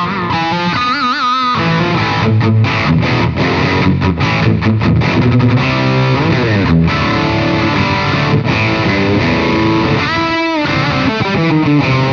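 Electric guitar through a Caline Jaguar Classic High Gain Distortion pedal, played with heavy high-gain distortion on a mid-scooped setting. Riffing with held notes given wide vibrato about a second in and again near the end, and a pitch slide around the middle.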